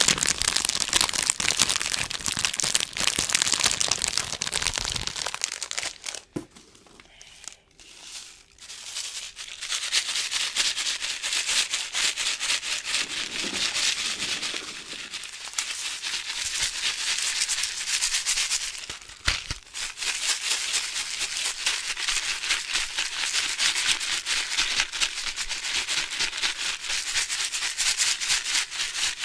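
Plastic candy packaging crinkled and rubbed close to the microphone: a dense run of fine crackles, with a short lull about six seconds in.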